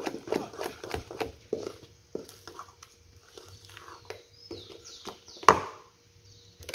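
A wooden spoon beats thick chocolate cake batter in a stainless steel bowl, with quick rhythmic knocks against the bowl for the first two seconds. Slower, softer stirring and tapping follow. A single sharp knock of the spoon on the bowl comes about five and a half seconds in.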